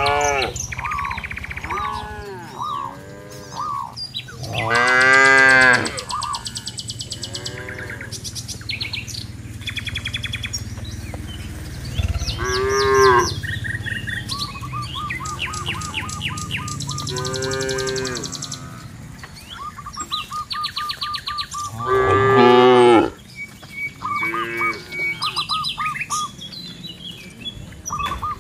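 A herd of zebu-type cattle, cows and calves, mooing again and again as they walk: a run of short calls, broken by several long, loud moos.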